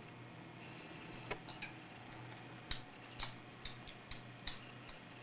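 A run of sharp clicks, about two a second, starting about halfway through, with a couple of fainter clicks before, over a faint steady low hum.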